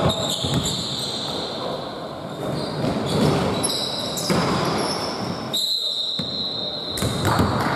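Basketball bouncing on a hardwood gym floor during play, mixed with short high sneaker squeaks from players moving on the court.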